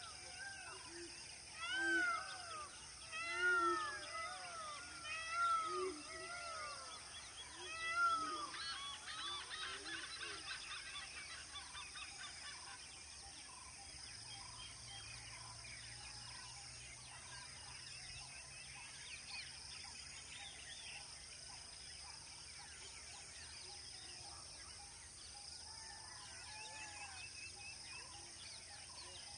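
Wild birds calling: a series of loud, arching calls, each rising and falling in pitch, over the first eight seconds, then a quick flurry of many short calls, then scattered calls later, over a steady high insect drone.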